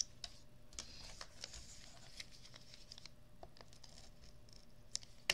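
Paper and cardstock being handled and shifted on a craft mat: faint rustling with scattered light taps, and a couple of sharper clicks near the end.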